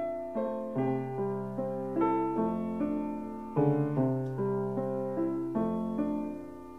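Solo piano music, slow and gentle, with one note or chord struck about every half second and left to fade.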